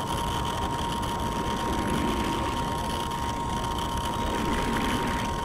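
Radio-controlled model boat's motor whining at one steady high pitch, with low wind rumble on the microphone.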